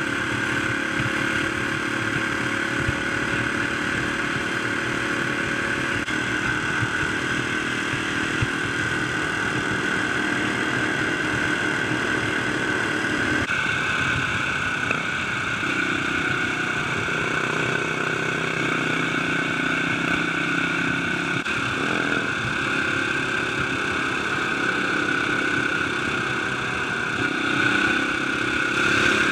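Dirt bike engine running steadily on the move, heard close up from the handlebars with wind and road noise. The engine note changes once about halfway through.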